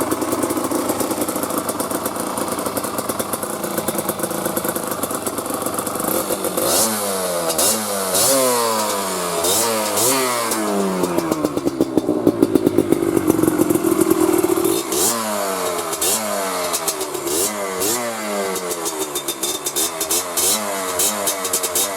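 1988 Kawasaki KMX 200's single-cylinder two-stroke engine. It runs steadily for about seven seconds, then is revved again and again, its pitch climbing and dropping many times in quick succession, with a brief steadier spell in the middle.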